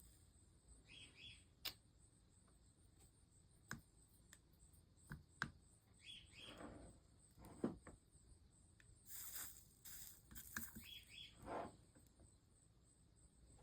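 Near silence while stained glass is soldered: a few faint, sharp clicks and taps, a couple of brief hisses, and faint short bird chirps several times.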